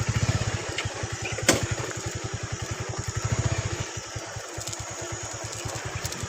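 Motorcycle's single-cylinder engine running at low speed with a steady thudding exhaust beat that swells and eases with the throttle. A sharp click about one and a half seconds in.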